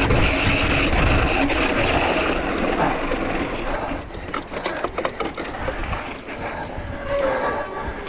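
Mountain bike on a fast descent: a continuous rush of wind and tyre noise. About four seconds in comes a quick run of sharp rattling knocks as the bike goes over rough ground, then the rush settles lower.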